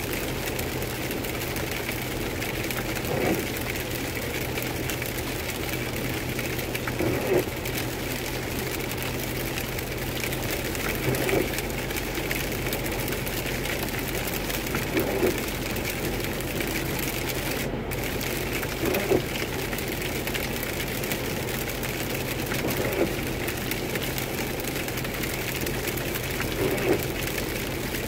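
Steady wet-road and engine noise heard from inside a car on a highway in rain, with a constant low hum. Windshield wipers sweep about every four seconds, each pass a brief louder swish.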